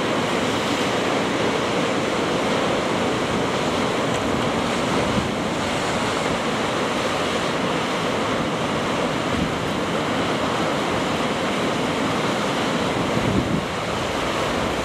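Sea surf breaking and washing over volcanic rocks: a steady, continuous rush of water.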